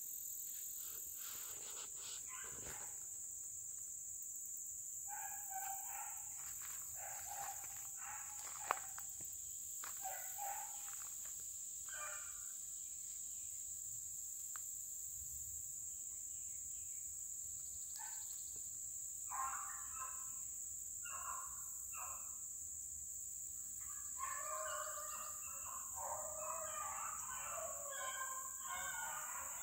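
A steady, high-pitched drone of crickets, with distant rabbit hounds barking and baying now and then, the voices coming thick and almost continuous over the last five seconds. One sharp click about nine seconds in.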